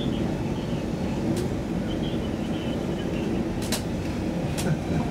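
Stockholm Metro C20 train running at speed, heard from inside the car: a steady low rumble of wheels on rails, with three sharp clicks, the first about a second and a half in and two close together near the end.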